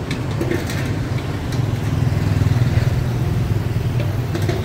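Motorbikes and a car passing on the street, a steady engine hum that swells about two seconds in.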